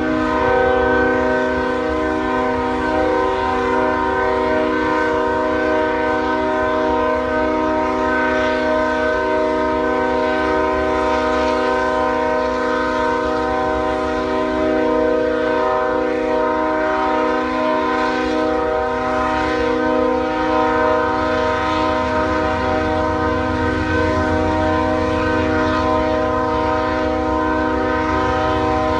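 Train air horn held in one long unbroken blast, several tones sounding together as a steady chord, over the low rumble of the train, which grows louder about three quarters of the way in.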